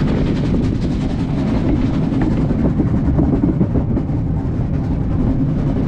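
Narrow-gauge steam train running: a steady, loud rumble.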